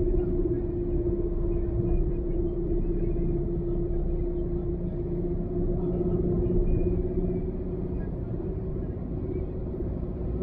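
Car driving on the road: a steady rumble of engine and tyres with a constant low hum.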